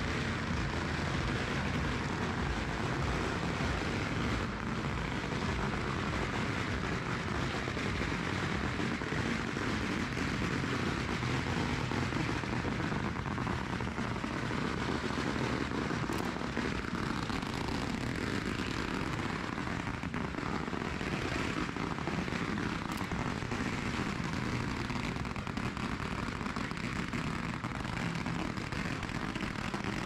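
Steady, dense din of a packed street crowd at a torchlit procession, with a low rumble underneath and no single sound standing out.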